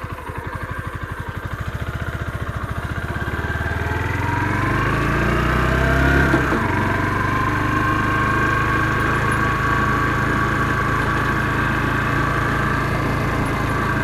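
Motorcycle engine pulling away at low revs, its pitch rising for a few seconds as it accelerates, then dropping back about six seconds in as the rider shifts up and holding steady at cruising speed.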